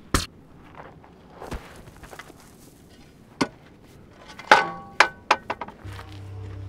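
A single gunshot just after the start, followed by scattered knocks and a group of sharp, ringing metallic clinks that are loudest about four and a half seconds in. Near the end a low steady hum comes in.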